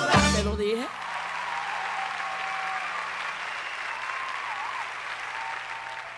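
The last sung note of a live song ends, and an audience applauds, with faint shouts in the crowd. The applause slowly fades out.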